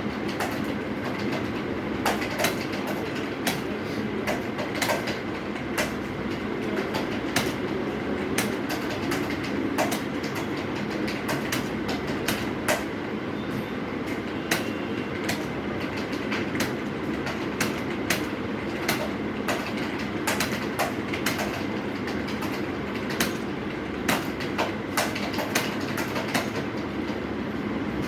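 Computer keyboard typing at a quick, uneven pace: sharp key clicks several times a second over a steady low background hum.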